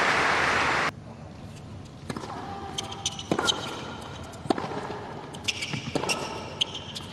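Crowd applause that cuts off abruptly about a second in, then a tennis ball bouncing and being struck on a hard court: sharp single pops roughly every second, some closer together.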